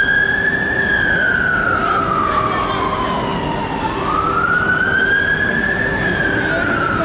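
Fire engine siren on the wail tone: the pitch climbs, then slides slowly back down, repeating about every four seconds, twice. A steady low hum of traffic runs beneath it.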